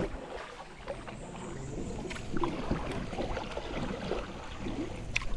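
Water sloshing around a small boat moving on a river, with scattered light knocks.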